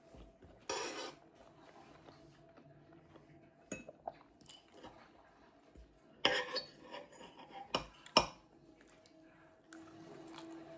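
Knife and fork clinking and scraping on dinner plates while eating: a short scrape about a second in, then scattered sharp clinks, the loudest cluster a little past the middle, over a faint steady hum.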